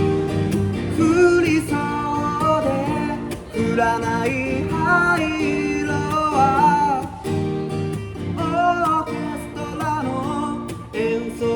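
Acoustic guitar strummed steadily under a wavering lead melody line in phrases of a couple of seconds, an instrumental passage of a folk song.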